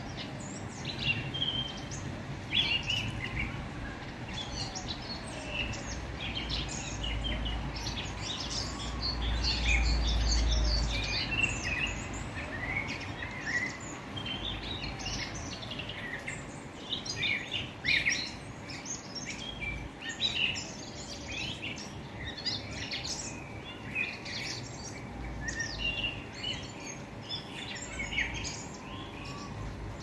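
Small birds chirping in many short, quick, overlapping notes, with a low rumble swelling for a few seconds about a third of the way through.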